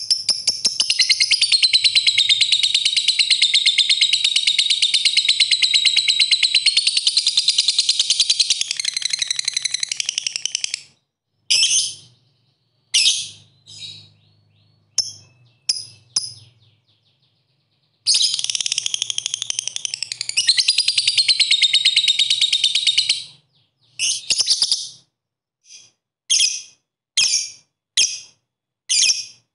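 Fischer's lovebird singing its long, fast, high-pitched chattering song, the 'ngekek' that keepers try to bring out. It sings one spell of about ten seconds and a second of about five, with short separate chirps between them and short calls about once a second near the end.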